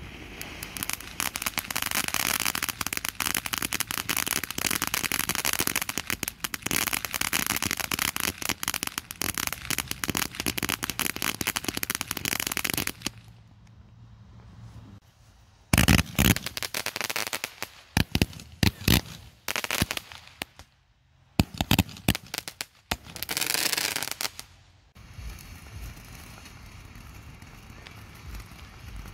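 Ground fireworks fountain spraying sparks with a dense crackle for about thirteen seconds. After a short lull comes a run of loud, sharp pops and bangs, then a brief burst of hiss. A fountain hisses more quietly and steadily near the end.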